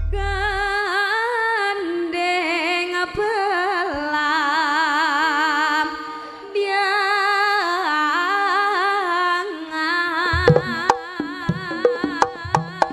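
Female sinden singing long ornamented notes with heavy vibrato over a sustained accompanying tone, with a short break a little past the middle. From about ten seconds in, sharp drum strokes come in under the voice.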